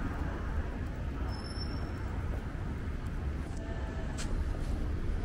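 Busy city street ambience: a steady low rumble of road traffic, with faint voices of passers-by.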